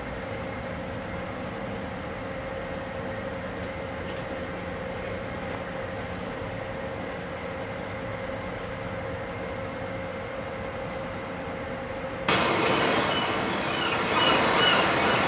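A steady mechanical drone with a few held tones. About twelve seconds in it gives way suddenly to loud, close, breathy noise from a dog panting near the microphone.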